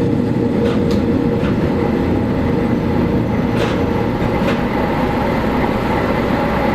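Diesel railcar running along the line, a steady engine and rolling hum with a few sharp clicks of the wheels over rail joints.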